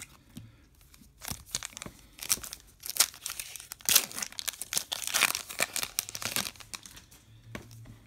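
Foil wrapper of a trading card pack crinkling and tearing as it is ripped open by hand: a run of crackles, loudest about halfway through, dying down a couple of seconds before the end.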